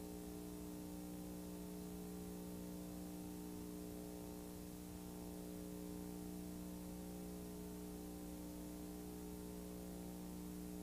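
Steady electrical hum with a faint hiss, left on the blank end of a video tape transfer after the recording stops.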